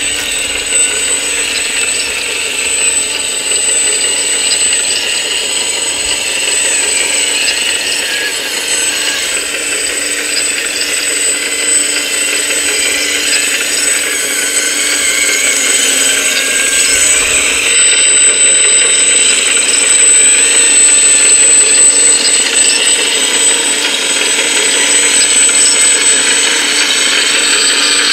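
Hydraulic pump of a Kabolite 336 RC hydraulic excavator running while the excavator works, a steady high-pitched whine with wavering tones under it as the hydraulics take load.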